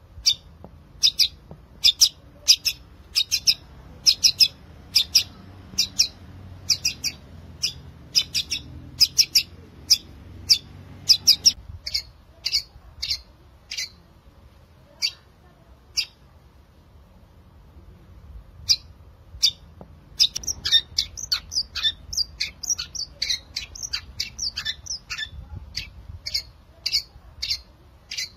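Long-tailed shrike (cendet) singing a series of short, sharp, repeated notes, about two or three a second. It pauses briefly about two-thirds of the way through, then breaks into a faster, denser run of varied chattering notes.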